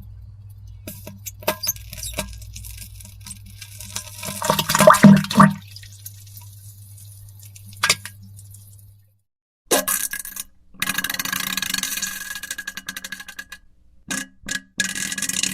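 Wet, sputtering diarrhoea and fart sounds played as separate edited clips. The first runs over a steady low hum with a cluster of sharp splats about five seconds in. After a sudden cut to silence, a rapid ragged sputtering starts at about ten seconds in.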